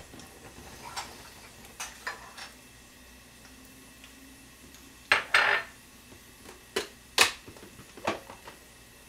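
A plastic clip-lock food container and a small bowl being handled and set down on the counter: scattered clicks and knocks, with the loudest clatters about five seconds in and again just after seven seconds.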